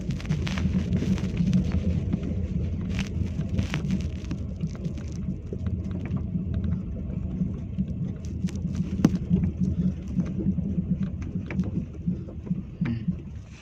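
Car cabin noise while driving slowly on a rough, unpaved gravel road: a heavy low rumble from tyres and suspension, with frequent irregular clicks and knocks from stones and bumps. It eases off right at the end.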